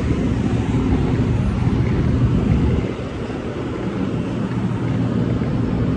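Steady low rumble of a moving vehicle, dipping a little about halfway through.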